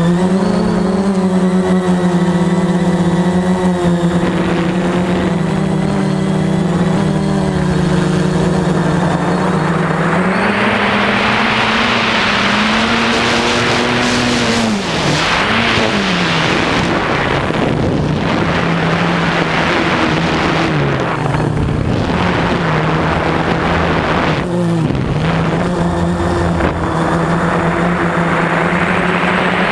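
Quadcopter drone's electric motors and propellers whining steadily, the pitch wavering up and down as the motor speeds change. From about a third of the way in, a loud rushing noise rises under the whine and dies away near the end.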